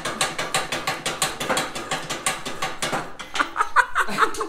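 Hand ratchet clicking rapidly, about seven clicks a second, as it is swung back and forth to turn a bolt on a riding mower's steel frame. The clicking runs for about three seconds, then turns irregular.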